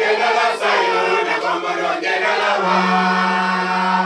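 A congregation singing a hymn together, many voices in chorus. A low note is held steady from a little past halfway.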